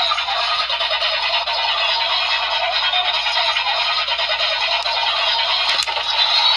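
A Kamen Rider Geats Premium DX Kekera & Beroba transformation-belt toy plays its black-card transformation sound effects and music through its small speaker, thin and without bass. A sharp click comes near the end.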